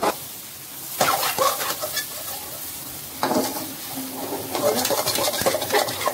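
Semolina halwa sizzling in an aluminium kadhai while a metal slotted spoon stirs and scrapes it round the pan. The water has almost cooked off and the halwa is thickening. There is a sharp knock right at the start.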